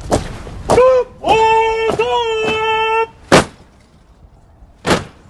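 Boots of a marching national flag guard stamping down in unison in goose step, each stamp a sharp crack, spaced irregularly about half a second to a second and a half apart. About a second in, a long, drawn-out shouted drill command is held for nearly two seconds over the stamps.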